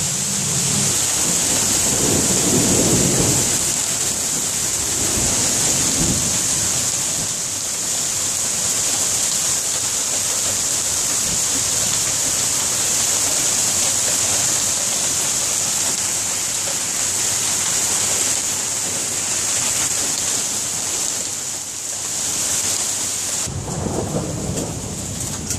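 Heavy rain mixed with small hail pouring down in a dense, steady hiss. A low rumble swells about two seconds in and again near the end.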